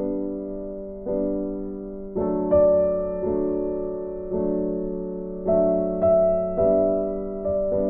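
Slow, gentle background piano music: notes and chords struck about once a second, each ringing and fading.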